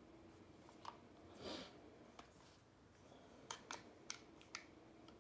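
Faint metallic clicks, about five, and one brief scrape as an AR-15-style rifle is handled and worked to pull its receivers open.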